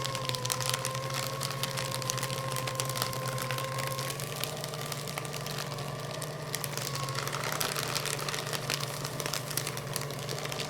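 Electric office paper shredder running and cutting through a thick stack of paper: a steady motor hum and whine whose pitch wavers a little under load, over dense crackling of paper being torn through the cutters.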